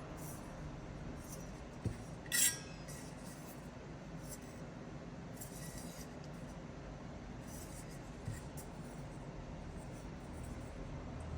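Metal parts of a wood-burning camp stove being handled: a light knock about two seconds in, then a brief metallic clink with a short ring, and another soft knock later, over faint rustling.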